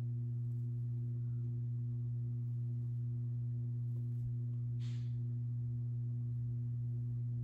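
Steady low electrical hum with a couple of fainter overtones, unchanging throughout; a short soft hiss about five seconds in.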